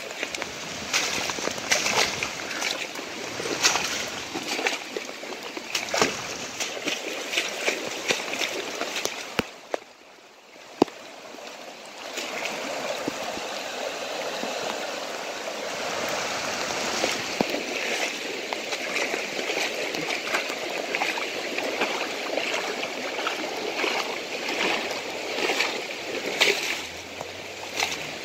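Fast, flash-flooded creek water rushing, a steady even rush. For the first nine seconds or so irregular splashes sound over it, then it drops away briefly, with a single sharp knock about eleven seconds in.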